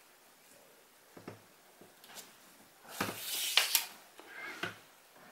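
Handling noise of a camera shoulder strap being threaded onto a Sony Alpha a6300's strap lug: a few light clicks, then a louder rustling swish with a sharp click as the strap is pulled through about three seconds in, and a last rustle and click near the end.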